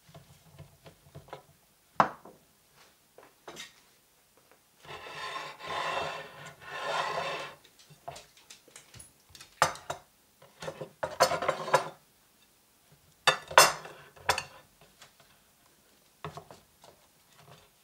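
Ceramic plates and bowls handled on a wooden table: scattered knocks and clinks as dishes are set down, with a longer rubbing, sliding noise a few seconds in and clusters of clattering later on.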